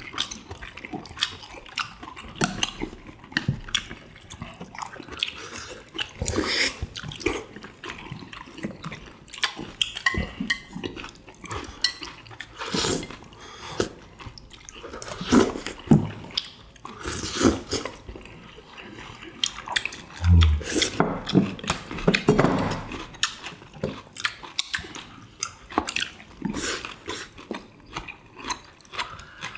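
Several people eating saucy tteokbokki rice cakes: wet slurping and chewing, with chopsticks clicking against bowls now and then.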